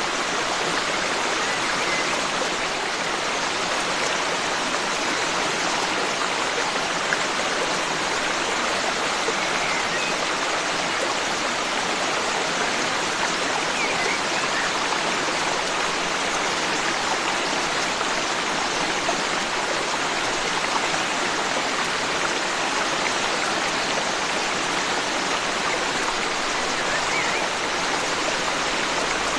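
Forest stream rushing steadily, an even, unbroken water noise, with a few faint bird chirps above it.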